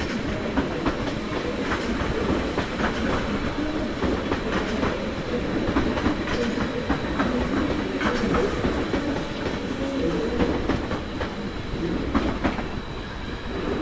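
Train rolling along the station tracks, its wheels clattering steadily over rail joints and points with many short clicks.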